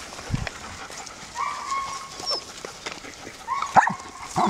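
Young puppy whining: one long, level whine about a second and a half in, and a shorter, broken whine near the end. A low thump comes near the start.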